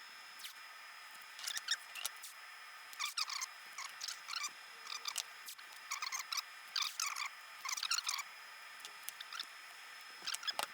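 Small hand-work sounds of a glue-up: short, high, crackly squeaks in irregular bursts, about one every second.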